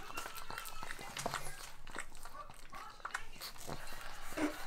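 Pug licking at a lemon wedge, its tongue and lips making irregular short clicks.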